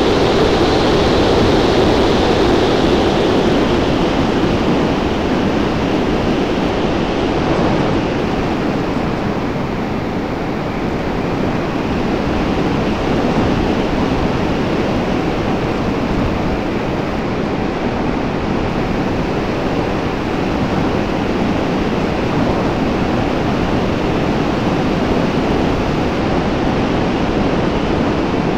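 Steady rush of airflow noise on the microphone of a camera riding aboard a radio-controlled model Cessna 337 in flight, slightly louder in the first few seconds.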